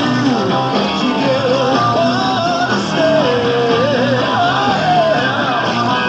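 Live hard rock band playing: electric guitar, bass and drums, with a wavering lead melody over the top.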